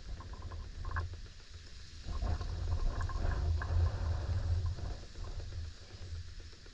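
Wind buffeting an outdoor camera microphone: a low, gusting rumble that swells about two seconds in and eases off near the end, with scattered light scrapes and clicks.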